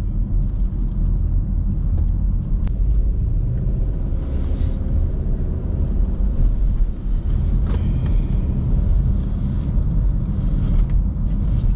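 A car driving, heard from inside the cabin: a steady low road and engine rumble with a few faint ticks.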